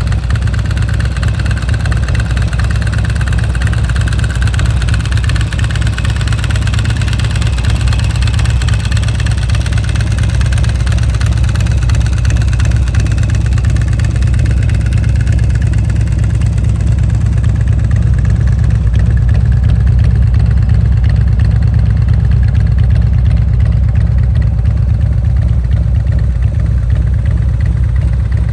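1999 Harley-Davidson Road King's V-twin, built with a 95 kit and 203 cams, running steadily and loud through S&S Power Tune dual exhaust, with its BDL ball-bearing open-belt dry clutch spinning.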